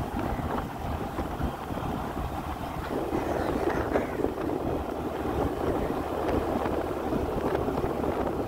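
Wind buffeting the microphone over a low, steady running rumble from the vehicle carrying the camera along the road.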